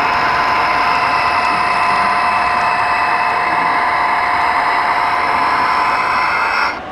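A steady mechanical whine made of several held tones over a hiss, which cuts off abruptly near the end.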